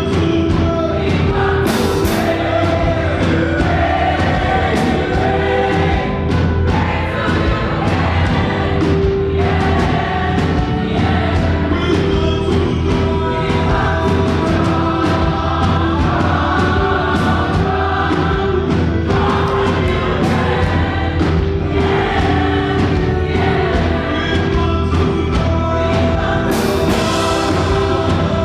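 Fast gospel praise song performed live: a choir singing over a band with a steady, driving beat, with a loud crash about two seconds in and another near the end.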